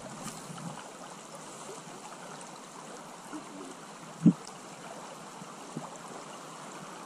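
Shallow river riffle running steadily over stones. About four seconds in there is a single short thump.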